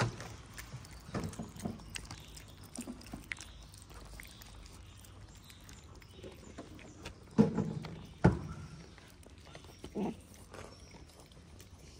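Stray cats and kittens eating wet food from plastic trays: small clicks, chewing and tray knocks. Short, louder animal sounds come about a second in, around seven and eight seconds in, and at ten seconds.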